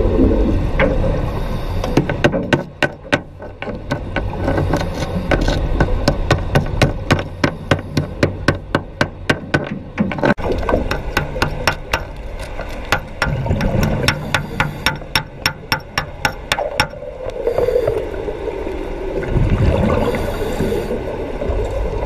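Sharp metallic taps underwater in quick runs of about four a second, over a steady low rumble from the diver's breathing bubbles. The taps stop about three-quarters of the way through, leaving the low bubbling.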